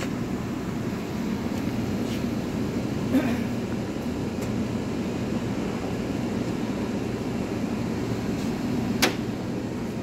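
Steady low background noise, with a sharp click about three seconds in and another near the end.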